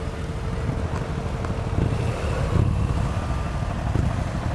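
Motorcycle engines running at low speed in a slow-moving parade, a steady low rumble.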